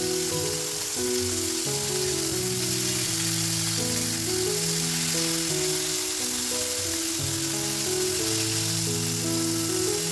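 Flour-battered squid rings sizzling steadily as they deep-fry in hot oil, with background music playing a melody over the frying.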